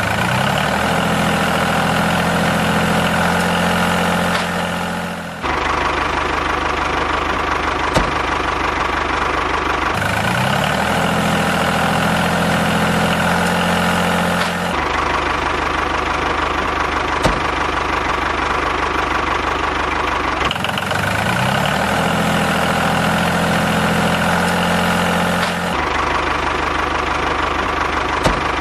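Tractor engine running, revving up and holding steady at a higher pitch, alternating every five seconds or so with stretches of a lower steady rumble; the rev-up comes three times, about ten seconds apart.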